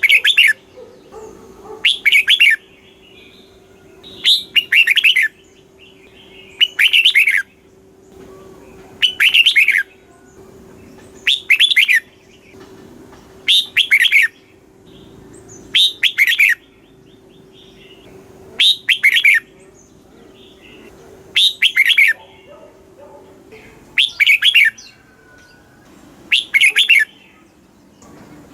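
Red-whiskered bulbul singing its short, bubbling song phrase over and over, about once every two seconds, with softer calls in between. A faint steady hum underneath stops near the end.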